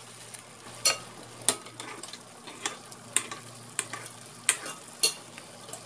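White wine, lime and butter sauce with capers simmering and sizzling in a frying pan, with sharp clicks and taps every half second or so as fried chicken breasts are laid in and a spoon bastes them against the pan.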